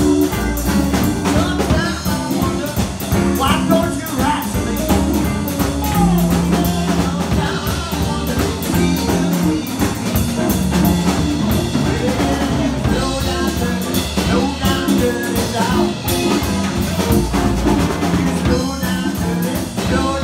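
Live electric blues band playing: electric guitars over a drum kit keeping a steady beat, with a wavering lead line on top.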